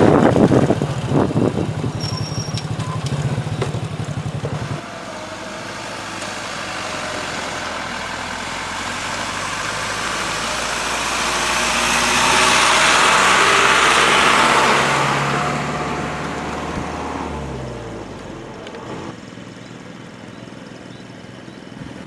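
Road traffic: a loud knock at the start, then a vehicle engine running close by for about five seconds, followed by a passing vehicle whose noise swells to a peak and fades away.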